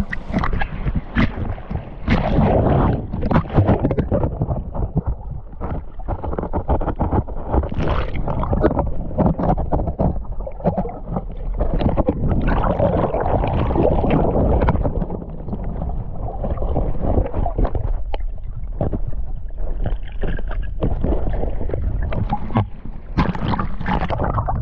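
Water splashing and sloshing around a paddled kayak: irregular splashes and knocks over a constant low rumble.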